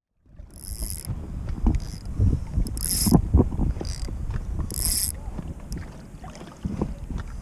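Spinning reel worked by hand close to the microphone: four short high whirring bursts from the reel mechanism, with small clicks and handling knocks, over a low wind rumble.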